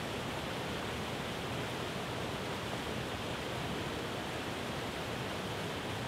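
Waterfall: white water pouring down a rocky cascade, a steady, even rushing.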